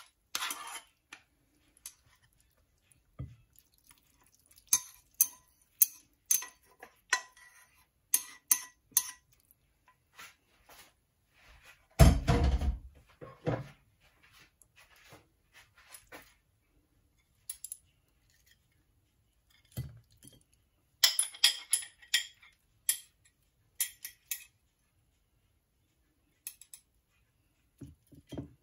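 Kitchen utensils clinking and scraping against a saucepan and a ceramic plate as instant noodles are served out, in scattered short clinks, with one heavy thump about twelve seconds in.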